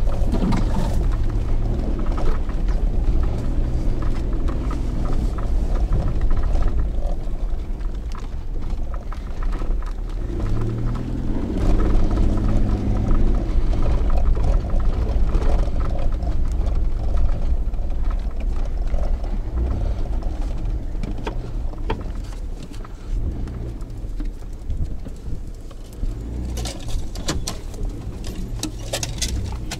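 An SUV's engine runs as it is driven slowly over a rough dirt track, heard from inside the cabin, with knocks and rattles from the body. The engine note rises about ten seconds in. Near the end, sharp clicks and scraping come as branches brush along the side of the vehicle.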